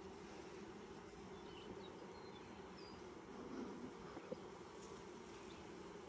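Honey bees buzzing around an opened hive: a faint, steady hum, with one light click about four seconds in.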